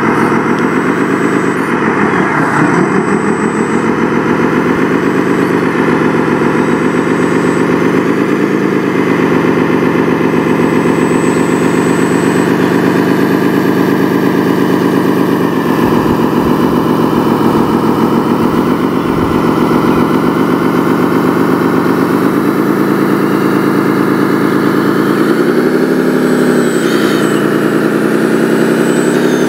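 Radio-controlled model bulldozer running as it pushes dirt. Its steady engine sound rises and falls in pitch several times with the throttle, dipping about two seconds in and climbing again near the end.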